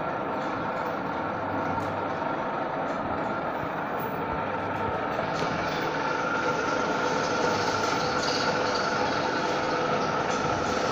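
Steady hum and whine of a plano milling machine's electric motor and gear drive running, with a higher hiss joining about halfway through.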